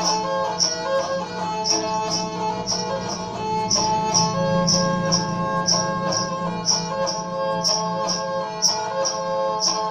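Instrumental ringtone music: a melody of held notes over a steady high percussion tick, about two ticks a second.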